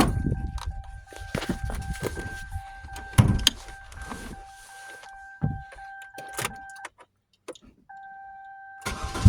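Clicks and thumps of a car door and interior being handled, over a steady high electronic warning tone from the 2001 Pontiac Grand Am, which breaks off for about a second near the end and then resumes. At the very end the car's 2.4 L LD9 twin-cam four-cylinder starts.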